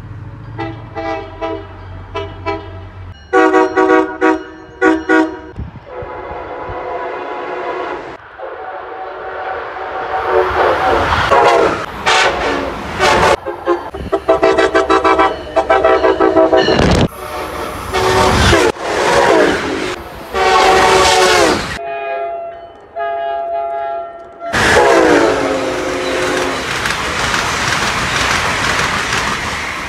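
Passenger trains sounding multi-note air horns as they approach and pass station platforms: several short blasts in the first few seconds, then longer blasts over the loud rushing noise of trains going by. The sound changes abruptly several times as one train gives way to the next.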